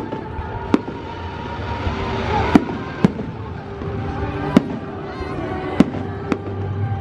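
Fireworks display: aerial shells bursting overhead, about seven sharp bangs at irregular intervals of roughly half a second to a second and a half, over a steady background din.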